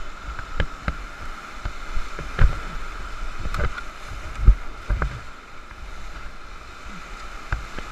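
Whitewater rapid rushing around an inflatable raft, with irregular thumps and splashes as waves break against the raft and paddle strokes dig in. The loudest thumps come about two and a half seconds in and again around four and a half to five seconds.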